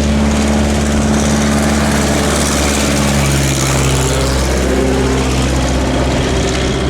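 A light aircraft's piston engine and propeller running close by, a steady drone whose pitch shifts slightly about three seconds in.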